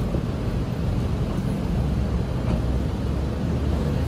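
Steady low background rumble with no distinct knocks; the cleaver pressing through soft dough on the cloth-covered table makes no clear sound.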